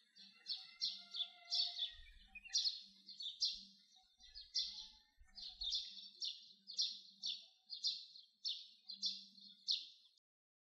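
Birdsong: a quick series of high chirps, two or three a second, each sliding down in pitch, stopping near the end.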